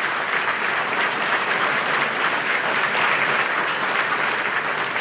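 An audience in a banquet room applauding steadily, a dense patter of many hands clapping.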